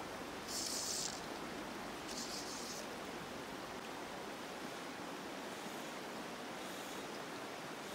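Steady rush of a shallow river flowing over stony riffles, with two brief high hissing swishes in the first three seconds.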